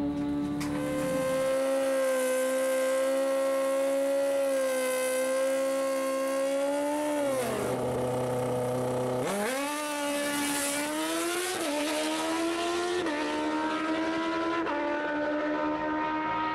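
Nitrous-injected Suzuki GSX-R1000 drag bike's inline-four engine held at high revs. It drops to a low idle for a couple of seconds, then revs up hard for a launch, its pitch stepping through three gear changes.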